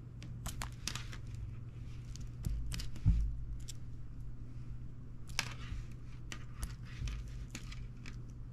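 Plastic spiral springs being stretched and handled on a wooden tabletop: scattered light clicks and taps, with one low thump about three seconds in, over a steady low hum.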